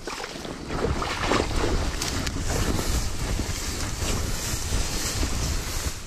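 Wind rumbling on the microphone over a rough rustling noise that grows louder about a second in, with a few short sharp crackles.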